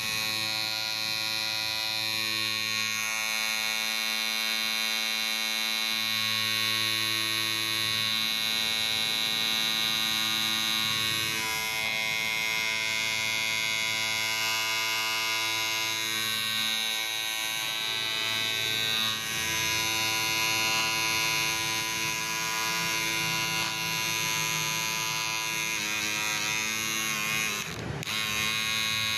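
Electric hair clipper running steadily with a buzzing hum, with a brief dip near the end.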